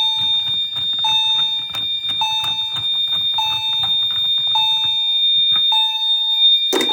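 Fire alarm system sounding in test: a steady high-pitched tone holds throughout, while a lower tone repeats about once a second. A low buzz underneath stops about five and a half seconds in, and a single sharp click comes near the end.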